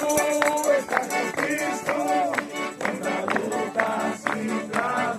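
Live accordion music playing a lively tune over a steady, quick beat.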